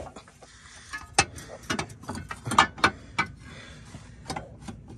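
Metal T-bracket clanking and knocking against the car's mount and underbody as it is turned and worked by hand into position: a string of irregular sharp metallic knocks.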